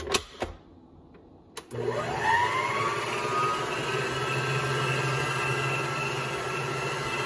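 Electric stand mixer switched on about a second and a half in after a couple of sharp clicks, its motor spinning up with a rising whine and then running steadily as the beater turns through a thick bread batter.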